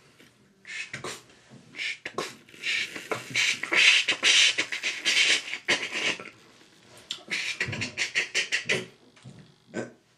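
A person imitating a small steam locomotive with his mouth: a run of hissing chuffs, loudest in the middle, then a quicker series of short puffs near the end.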